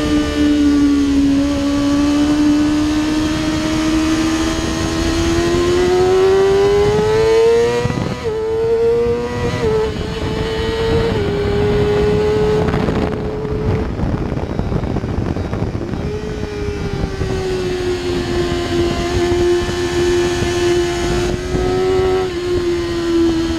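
Kawasaki ZX-6R inline-four sport-bike engine with an Akrapovič Evolution exhaust, heard on board at high revs under constant wind rush. The engine note climbs steadily, then drops in a few quick upshifts. It disappears under the wind for a couple of seconds midway as the throttle closes, then comes back and slowly sinks.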